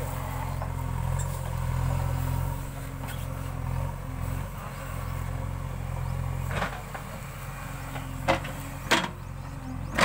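JCB 3DX backhoe loader's diesel engine running steadily as it digs, pulling a little harder in the first few seconds. Three sharp knocks come in the last four seconds.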